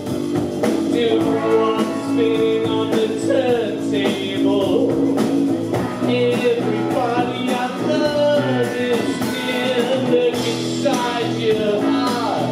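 Live rock band playing a song: electric guitar, bass guitar and drums, with a man singing.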